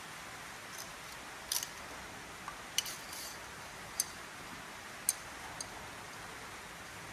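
A handful of sharp metallic clicks and taps, spread a second or so apart, as a drill-mounted cylinder hone is handled and set into a cylinder bore of the engine block, over a steady low hiss. The drill is not yet running.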